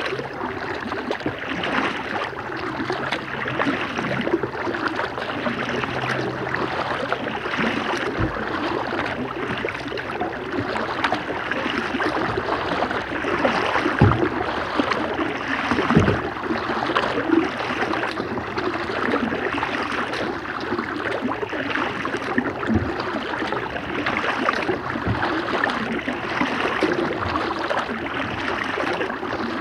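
Kayak paddle splashing steadily in calm river water, with a few dull low thumps, the loudest about halfway through.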